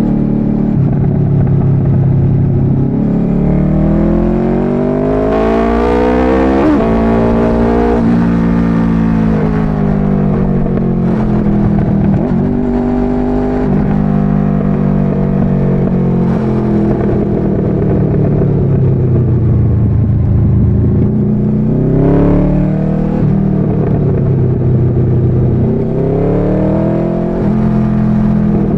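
Motorcycle engine heard from the rider's seat, accelerating through the gears: its pitch climbs and then drops sharply at shifts about 7 and 12 seconds in. It holds steady, eases off around 20 seconds, and climbs again twice near the end.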